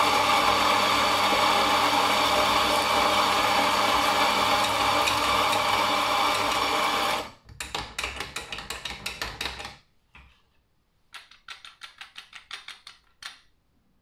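Gaggia MDF espresso grinder's motor running steadily as it grinds coffee beans through its flat burrs on a fine setting, then switching off about seven seconds in. After that the doser lever is worked, giving two runs of rapid clacking.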